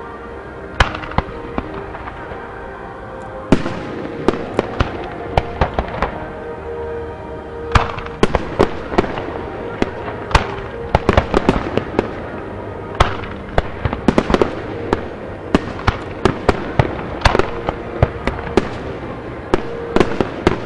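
Fireworks display: aerial shells bursting in sharp, irregular bangs, a few at first, then a steady run from about three and a half seconds in and a dense string of reports from about eight seconds in. Sustained music plays underneath.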